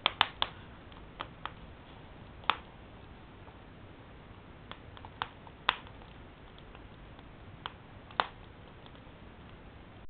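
Wood fire crackling in a stove's firebox: about ten sharp, irregular pops over a low steady hiss, the loudest in the first moment.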